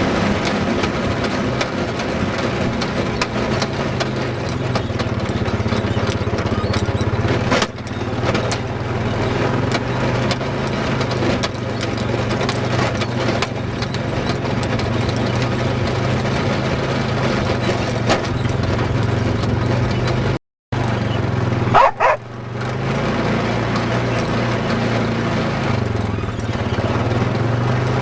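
ATV engine running steadily under way, with a sharp cut to silence about two-thirds of the way through and a brief high-pitched squeal just after.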